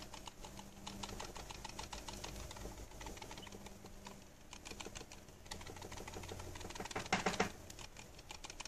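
A Logitech G303 gaming mouse shaken in the hand, rattling in fast dense clicks, with a louder flurry near the end. The rattle is a loose optical lens under the sensor that is not held down properly.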